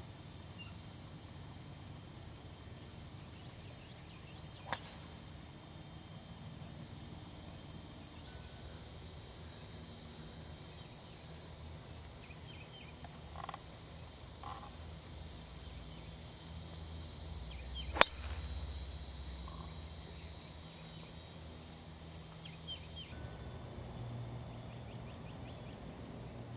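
Golf clubs striking balls on the course: a light click about five seconds in and a much louder sharp crack about eighteen seconds in, over faint outdoor background.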